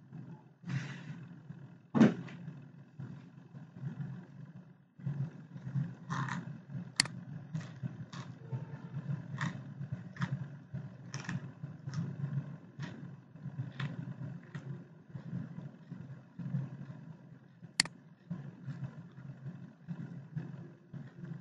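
Scattered sharp clicks, about fifteen at uneven intervals, over a steady low background rumble. The clicks are typical of a computer mouse being clicked.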